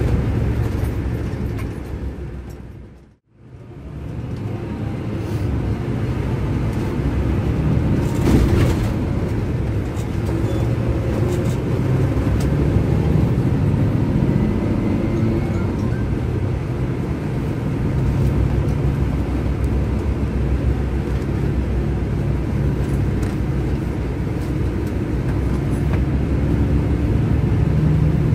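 Scania K400IB coach's six-cylinder diesel engine heard from inside the passenger cabin while under way, a steady low drone. The sound fades out and comes back in about three seconds in.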